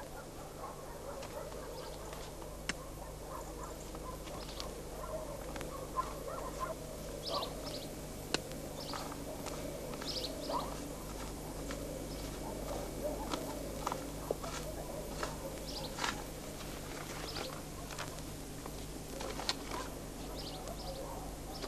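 Chickens clucking softly, with scattered short calls and rustling, over a steady low hum.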